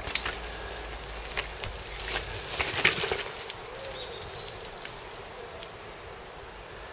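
Mountain bike riding over a dirt forest trail: a run of clicks and rattles from the tyres, chain and frame over roots and stones, loudest about two to three seconds in, then fading.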